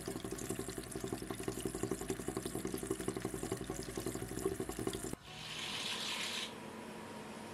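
Kerosene running from a flexible coolant nozzle into an EDM work tank, with a rapid, even pulsing for about five seconds. After that it turns to a steadier hiss.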